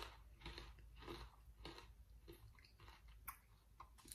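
Faint crunchy chewing of a hard black sesame fried dough twist, about two crunches a second.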